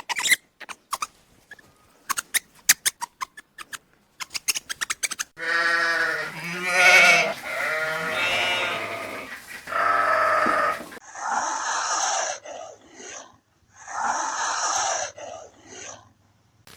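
A run of sharp clicks and quick taps, then several wavering, bleat-like animal calls, then two hissing bursts of about a second and a half each near the end.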